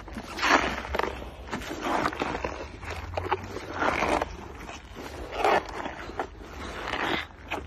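Hippopotamus chewing a mouthful of lettuce close up: irregular wet crunching bursts every second or so.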